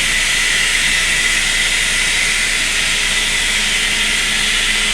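CNC wire EDM machine sparking as its thin brass wire burns through steel: a steady hiss with a steady high tone.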